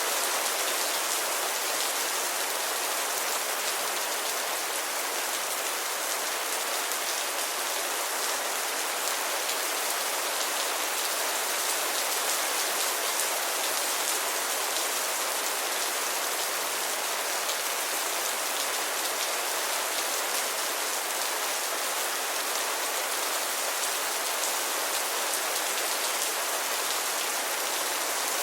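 Steady rainfall, with many small drops pattering on a surface.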